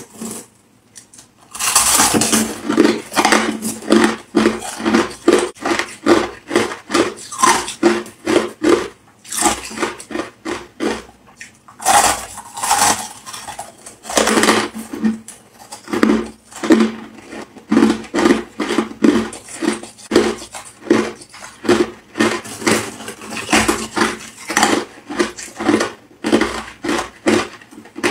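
Close-up crunching and chewing of hard, frosty crushed ice, a fast run of crisp crunches several times a second that starts about a second and a half in. There are brief crackly stretches as handfuls of ice are scooped from a plastic bowl.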